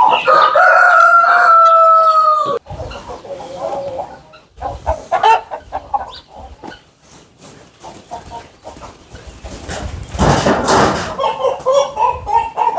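Rooster crowing: one long, loud, slightly falling call that cuts off about two and a half seconds in. Then chickens clucking, with a brief rustling burst about ten seconds in.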